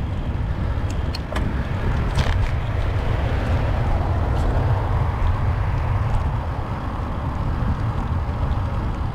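Wind rumbling on the camera's microphone as a road bike rides along at a steady pace, with a hiss of tyre and road noise; a few faint clicks in the first two seconds.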